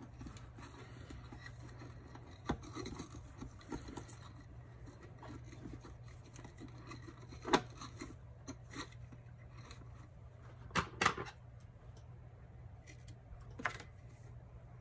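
Faint handling of sheer ribbon being tied into a small bow on a plastic bow-making tool: soft rubbing with a few sharp light clicks, and a scissor snip near the end as the ribbon is trimmed.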